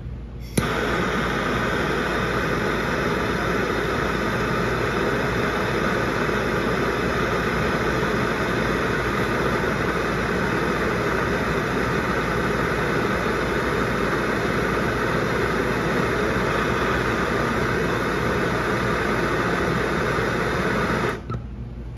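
Handheld gas torch lit with a sharp click, then burning with a steady hiss while it heats the jaws of a pair of vise grips red hot. The flame cuts off abruptly near the end.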